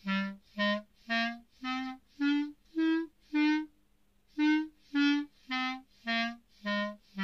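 A student's clarinet playing a major scale staccato: short, separated notes about two a second, stepping up in pitch, a brief pause about four seconds in, then stepping back down.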